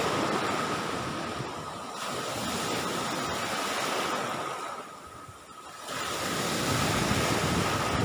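Sea waves washing up on the shore in two long rushes, the second building about six seconds in.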